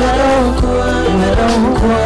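Music: a song with singing over a steady bass line.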